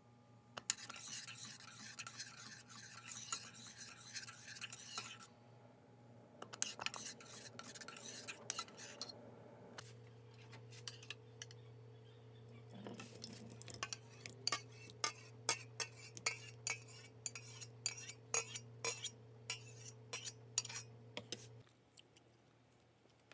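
A metal spoon stirring and scraping thick congee in a stainless steel pot. Then congee is scraped out of the pot into a stainless steel bowl, with many quick metal-on-metal clinks over a steady low hum that stops near the end.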